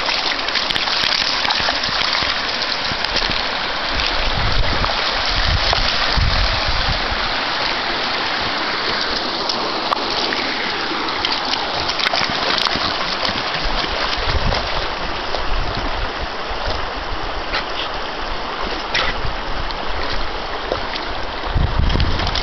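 Husky wading through shallow water over stones, its legs splashing and sloshing the water, over a steady rush of water noise with a few low rumbles.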